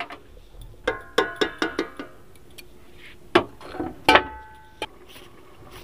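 Stainless-steel cookware clinking: several irregular metal knocks, each with a brief ringing tone, the loudest about four seconds in, over a low steady hiss.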